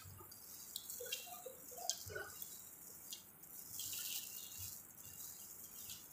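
Faint crinkling of disposable plastic gloves with irregular wet clicks and crackles as crab shell is peeled apart and seafood is eaten.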